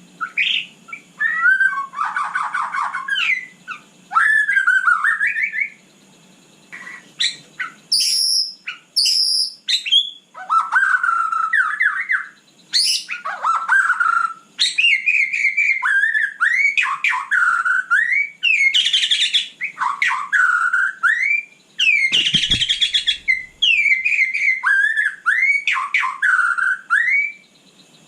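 White-rumped shama singing a long, varied song of loud whistled phrases, with quick rising and falling notes and short pauses between phrases. One dull knock is heard about three-quarters of the way through.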